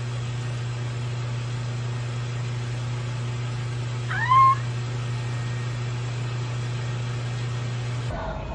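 A single short meow-like call about four seconds in, rising in pitch and then held briefly, over a steady low hum.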